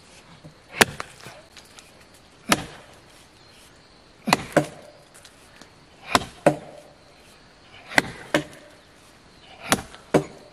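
Axe chopping into the trunk of a standing tree: sharp, loud blows about every second and a half to two seconds, about ten in all, several landing as quick double strikes.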